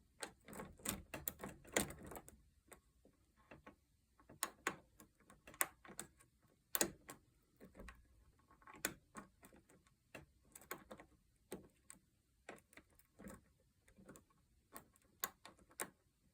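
Faint, irregular metallic clicks and light scraping of a bobby-pin hook and tension tool working the pins inside a Schlage deadbolt's cylinder, as the pins are lifted and set one by one.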